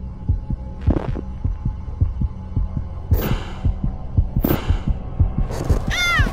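Fast heartbeat sound effect over a steady low droning hum, with a few brief hissing swells. Near the end comes a short cry of fright, "Ah!", falling in pitch.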